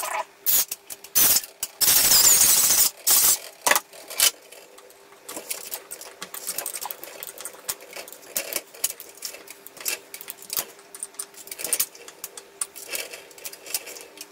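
Cordless electric screwdriver driving a screw through a metal curtain-rail bracket into the wall, in short bursts with one longer run of about a second near two seconds in. After that, softer clicks and rattles of the metal bracket and screws being handled.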